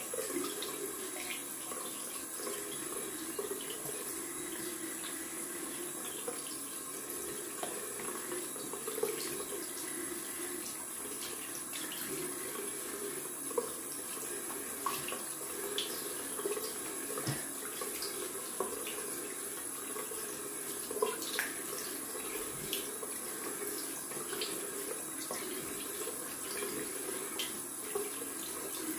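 Bathroom sink tap running steadily while cold water is splashed onto the face in a post-shave rinse, with small irregular splashes.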